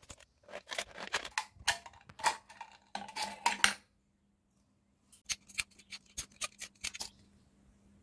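Thin aluminium drink-can pieces being cut with scissors and handled: a run of crisp metallic snips and clicks, a pause of about a second, then a second run.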